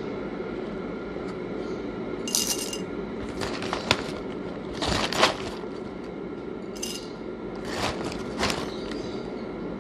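Whole roasted coffee beans poured into a small glass jar, rattling and clinking against the glass in several short bursts over a steady background hiss.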